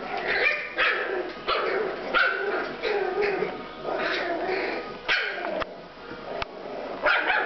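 Seven-week-old bichon frise puppies yapping and whining as they play together, a string of short high calls one after another.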